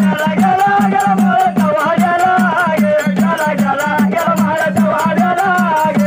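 Gondhal folk music: a sambal drum beating a fast, even rhythm, with small cymbals ticking on the beat, under a wavering, sustained melody line.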